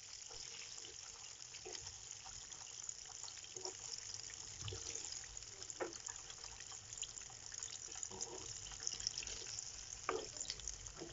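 Battered chicken pieces deep-frying in hot oil in a kadai: a quiet, steady sizzling hiss with scattered small pops and, now and then, a sharper crack.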